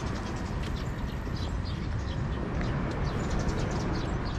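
Street ambience around a train station: a steady low rumble of city traffic, with many short, irregular high-pitched ticks over it.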